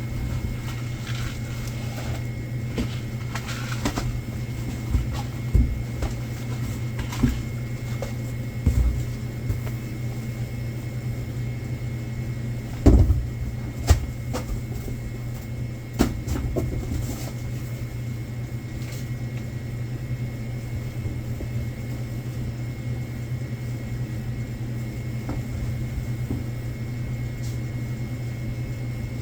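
Goods and boxes being handled while stocking a convenience store: scattered knocks and thumps, busiest in the first half, the loudest about halfway through, over a steady low hum with a faint high whine.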